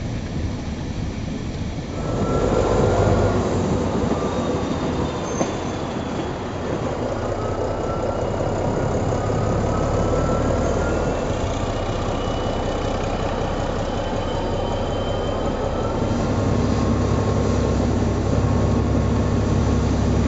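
Passenger train running on the rails, heard from on board: a steady rolling rumble and rail noise, with faint high wheel-squeal tones gliding up and down. It gets louder about two seconds in.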